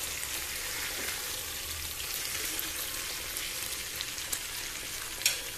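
Beef steak slices and garlic cloves sizzling in oil in a frying pan, a steady crackle. Metal tongs clack against the pan a few times, once sharply near the end.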